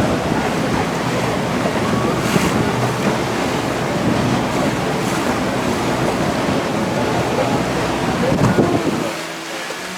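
Steady rush of water and wind noise on a moving boat, with the boat's engine beneath it. The noise drops off suddenly about nine seconds in.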